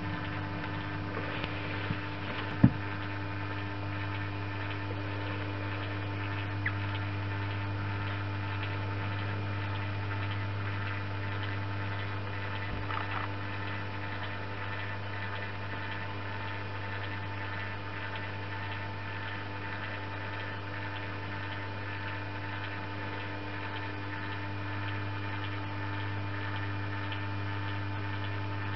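Steady electrical hum at an even level. A single sharp click comes about two and a half seconds in, with a few fainter ticks around it.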